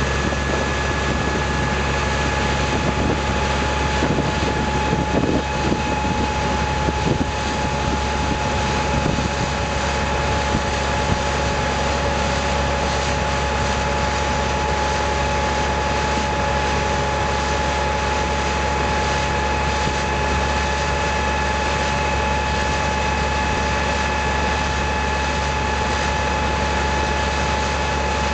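Longtail boat's inboard engine running at a steady speed, a constant drone with a held whine on top, the boat under way.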